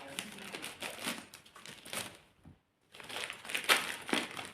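Packaging crinkling and rustling as a parcel is opened by hand, stopping briefly a little past halfway, then louder crackles.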